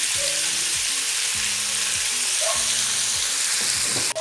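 Chunks of bacon, pork ribs, dried beef and calabresa sausage sizzling as they fry in rendered bacon fat in an aluminium pressure-cooker pot, stirred by hand with a wooden spoon. A steady hiss of frying, with light knocks of the spoon on the pot.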